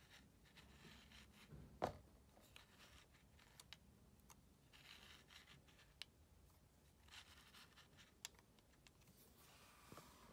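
Faint clicks and scrapes of a small plastic Bakugan figure being handled and repositioned by fingers on a card. The sharpest click comes about two seconds in.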